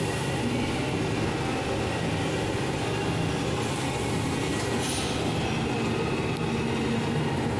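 High-speed heater-cooler mixer for plastic compounding, running steadily: a constant machine hum with a hiss over it.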